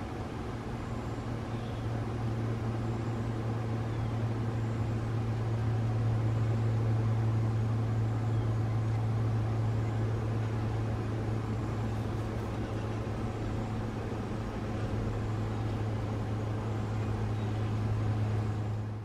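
Steady low machine hum with a constant pitch, over a background hiss.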